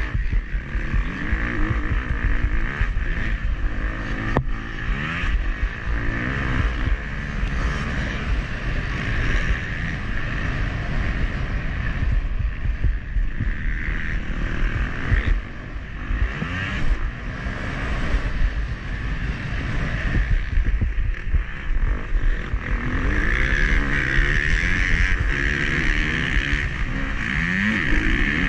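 Motocross dirt bike engine revving up and dropping back again and again as it is ridden hard around the track, with wind rumbling on the onboard camera's microphone.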